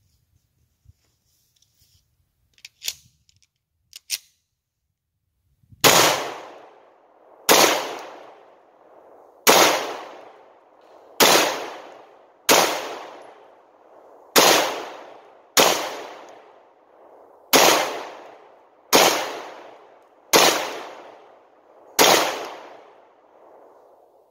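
Glock 19 Gen 4 9mm pistol fired in slow, steady succession: about a dozen single shots, one every second and a half or so, each followed by a long fading echo.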